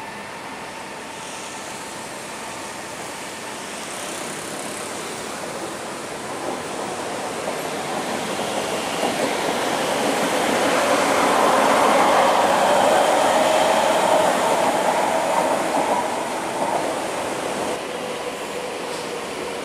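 Electric metro train on an elevated track running past: a rolling rumble with a humming whine that builds to its loudest about twelve seconds in, then drops away a few seconds later.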